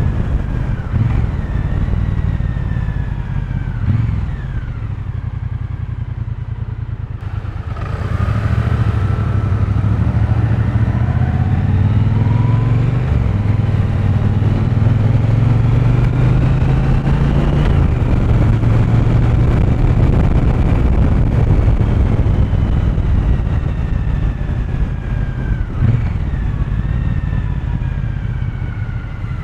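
Triumph T120 Bonneville's 1200 cc parallel-twin engine and exhaust running while riding in town traffic, the engine note falling and rising with the throttle and gear changes, louder from about a quarter of the way in.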